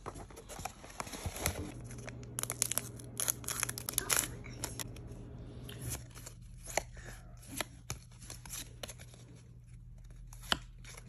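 Trading cards handled and flipped through by hand: stiff card stock sliding, snapping and tapping against card, with rustling and crinkling. The small irregular clicks are thickest in the first half and thin out later.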